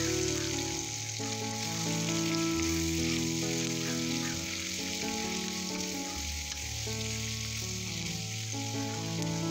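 Chopped onions sizzling as they fry in a black kadai, stirred with a wooden spatula, over soft background music with long held notes that change every second or so.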